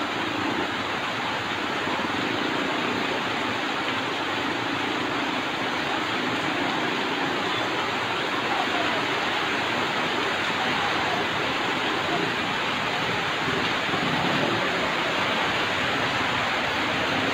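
Heavy rain pouring down steadily, a dense even hiss with no breaks.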